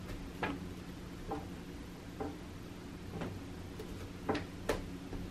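Light, sharp taps about once a second, with two close together near the end, as a cat bats with its paws at a wand toy on a grass-topped scratcher. A low steady hum lies underneath.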